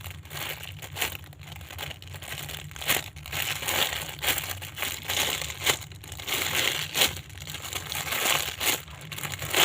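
Apple-shaped squishy toy being handled and squeezed: dense, irregular crinkling and crackling.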